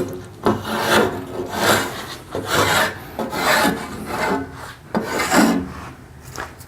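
Hand edge-tool blade shaving a wooden paddle shaft, a series of cutting strokes about one a second.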